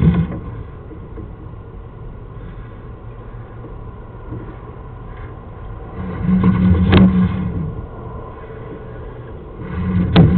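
Low rumbling and scraping as a sewer inspection camera's push cable is fed down the sewer pipe. It swells twice, about six seconds in and near the end, each time with a sharp knock.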